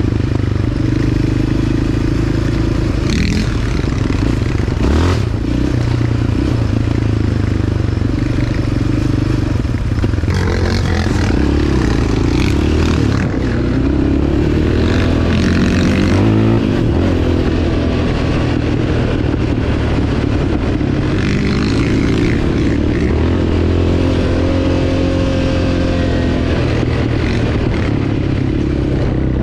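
Yamaha Raptor 700R's single-cylinder four-stroke engine running under way, rising and falling in pitch as the throttle is worked, with rattling and a couple of sharp knocks from the quad over the rough dirt trail a few seconds in.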